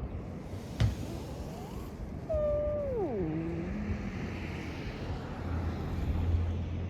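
A cat meowing: a faint short rising call, then one long meow that holds its pitch briefly and falls steeply, over steady background noise.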